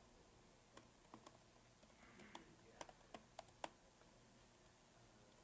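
Faint typing on a computer keyboard: a dozen or so scattered keystrokes, unevenly spaced, that stop about two-thirds of the way in.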